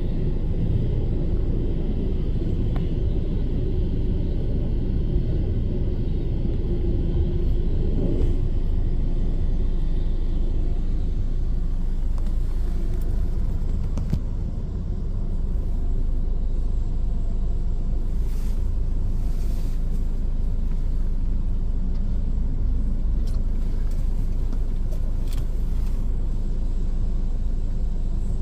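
Steady low engine rumble on an airport apron, heard from inside a vehicle's cab, with a brief slight dip in level about halfway through.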